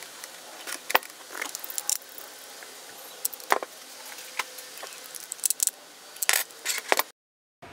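Small metal parts clinking and clicking as an aluminium chainsaw-attachment mount and a flange nut are fitted by hand onto an angle grinder's spindle: irregular light taps and scrapes of metal on metal.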